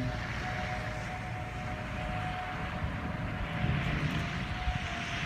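Outdoor tornado warning sirens sounding a steady wail, dipping slightly about halfway and coming back, over a rushing background noise.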